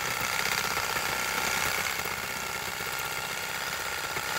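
Power saw running steadily while cutting tree branches.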